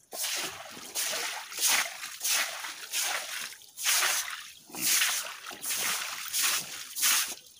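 Stiff broom scrubbing a wet floor in repeated swishing strokes, about one a second, with water splashing under the bristles.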